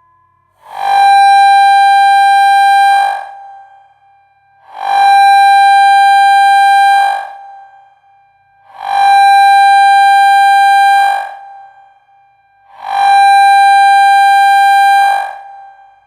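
Seven-tone electronic siren giving a loud, steady, horn-like blast about two and a half seconds long, repeated four times at even four-second intervals.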